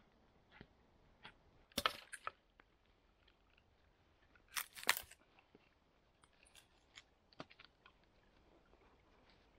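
Wood cracking and splintering as a log is split and pried apart by hand: two clusters of sharp cracks and crunches, about two seconds in and again about five seconds in, then a few lighter knocks as the split pieces are handled.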